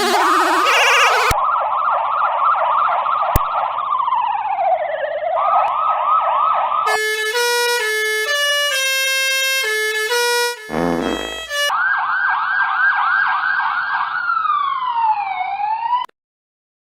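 Electronic police siren in its fast yelp, broken twice by a slow falling tone. In the middle comes a short tune of held, stepped horn-like notes and a brief swoop, then the yelp returns. It cuts off suddenly near the end.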